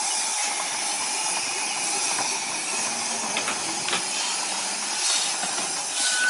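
A 15-inch-gauge geared steam locomotive with V-formation cylinders, hissing steadily as steam escapes low by its wheels, as from open cylinder drain cocks. There are two light metallic clicks midway, and near the end louder chuffs of exhaust as it begins to pull away.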